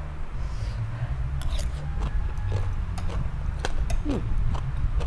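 Close-up chewing and crunching of crisp raw vegetables, with a metal spoon clinking and scraping on a ceramic plate near the end, over a steady low hum.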